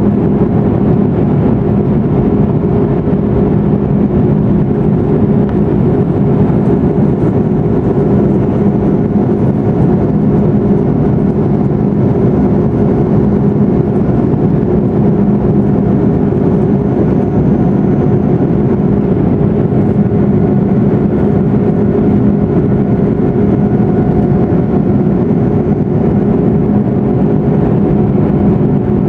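Cabin noise of an Airbus A340-600 climbing after takeoff: its Rolls-Royce Trent 500 engines and the rushing air make a steady, loud drone with a low hum running through it.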